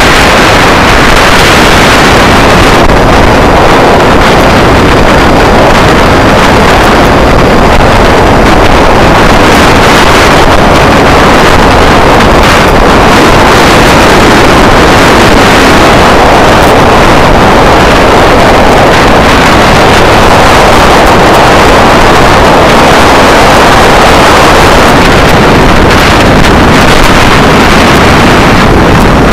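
Steady, loud rushing noise of wind buffeting the microphone of a camera carried aloft, mixed with the running motor of the craft that carries it.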